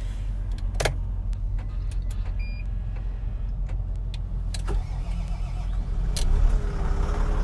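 Volvo L90G wheel loader's diesel engine cranking and starting, its rumble building near the end. A short electronic beep sounds from the cab about two and a half seconds in, with a few sharp clicks.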